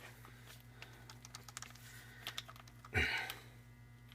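Faint scattered light clicks of a Phillips screwdriver working against a screw in a small quad engine's case, over a steady low hum, with one brief louder noise about three seconds in.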